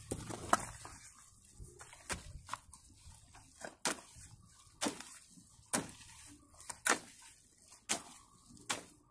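A hoe chopping and dragging through wet clay-and-soil mud mixed for bricks, one sharp stroke about every second.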